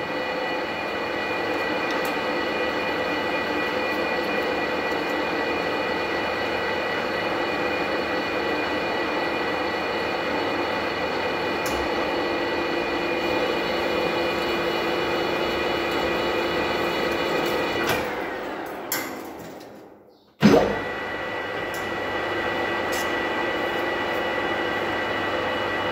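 Geared manual lathe running with a steady gear whine through a threading pass. About 18 seconds in, the spindle is switched off and winds down, falling in pitch to a stop. Half a second later it is started in reverse with a sudden loud clunk and runs back up to a steady whine, driving the carriage back out.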